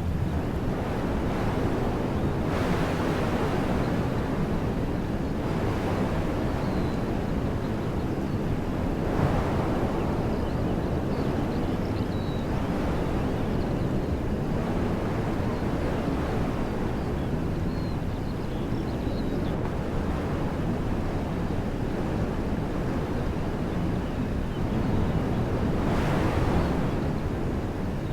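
Wind blowing through trees as a steady rushing noise, swelling in gusts several times, most strongly near the end, with a low rumble of wind on the microphone.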